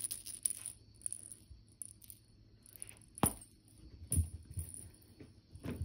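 A small cat toy rattling and jingling in a hand, with a sharp click about three seconds in. Then come soft thumps as a cat bounds up carpeted stairs.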